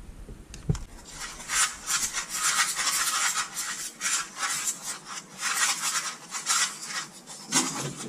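A plastic 2x2 speed cube turned rapidly by hand: a dense run of clicks and scrapes from the layers for about seven seconds, stopping just before the end.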